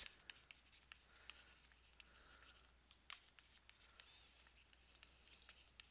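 Faint scratching and light tapping of a stylus writing by hand on a tablet surface, in a string of short strokes.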